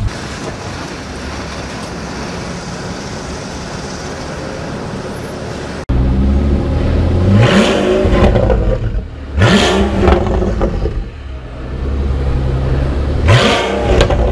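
For about the first six seconds a steady, even noise; then the Pagani Huayra's twin-turbo V12 idling and blipped three times. Each rev is a short, loud rise in pitch that drops back to idle.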